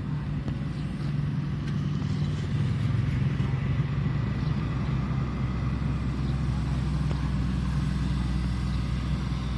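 Diesel engine of a Shantui ME210LC-1 crawler excavator running steadily while it works, a little louder from about two and a half to four seconds in.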